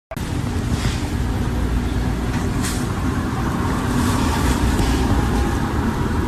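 Steady loud low rumble with hiss, starting abruptly, like a vehicle running.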